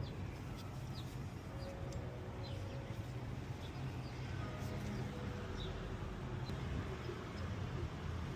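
Steady low rumble with faint, short, high bird chirps scattered throughout.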